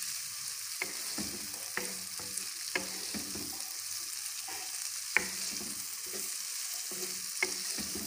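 Chicken pieces and diced green capsicum sizzling in oil in a pan while a spatula stirs them, with a steady hiss and sharp spatula clicks against the pan every second or so, the loudest about five seconds in.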